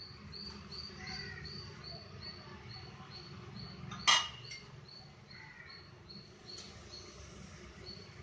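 A steel bowl clinks once, sharply, about four seconds in, with a fainter tap just after, as paste is tipped from a small steel bowl into a larger one. Behind it a short, high chirp repeats evenly about three times a second.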